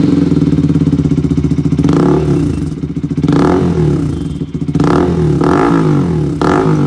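Bajaj Pulsar RS200's single-cylinder engine idling loudly through an aftermarket slip-on exhaust can, with the catalytic converter replaced by a bend pipe. It is blipped up in revs about five times and drops back to idle each time.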